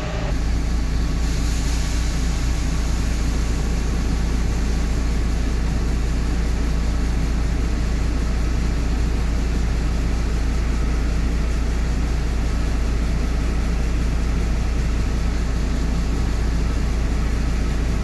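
Steady machinery noise with a deep low rumble: tractor and John Deere 9500 combine engines running while the combine's unloading auger pours shelled corn into a dump box.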